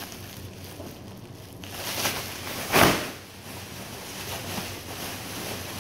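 Woven plastic feed sack rustling as it is shaken and opened over a sack-holder stand, with one sharp loud flap about three seconds in, over a steady low hum.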